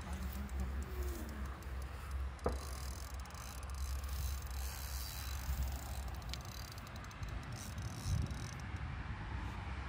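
Fishing reel ticking in spells, a freewheel-like clicking, while a hooked carp is played on a bent rod and pulls hard on the line. A single sharp click comes about two and a half seconds in, over a steady low rumble.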